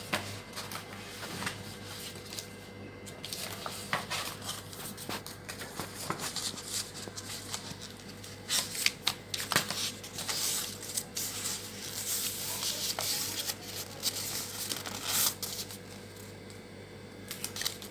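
Gift paper rustling and crackling as it is folded and creased by hand around a boxed gift, in short irregular bursts that are busiest in the middle.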